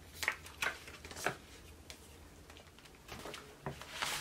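Sharp clicks and taps of a plastic CD jewel case and album packaging being handled on a table: three clicks within the first second and a half, then quieter handling, then a few more clicks near the end.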